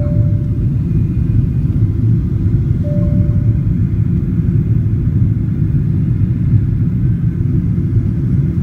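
Steady low rumble inside a Boeing 777-300ER cabin in flight: engine and airflow noise heard at a window seat. Two brief faint tones sound, one at the start and one about three seconds in.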